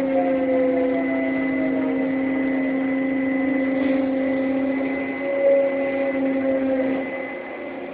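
Ship's deck crane machinery running while working an 18-tonne grab: a steady hum with several whining tones, some sliding slowly down in pitch, a brief louder surge about five and a half seconds in, and growing quieter near the end.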